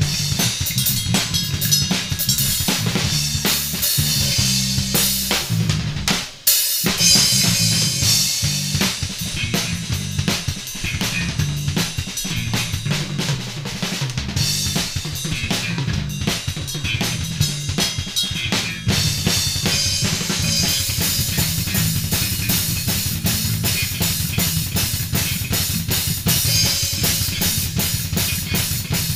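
Drum kit and bass guitar jamming together: kick drum, snare and rimshots over a bass line that steps between low notes. Both stop briefly about six seconds in, then play on.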